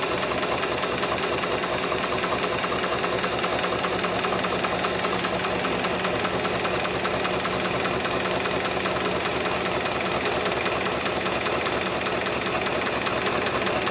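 HIGHTEX 7273PLK automatic programmable sewing machine running, stitching heavy belt material with a rapid, even beat of needle strokes over a steady high tone.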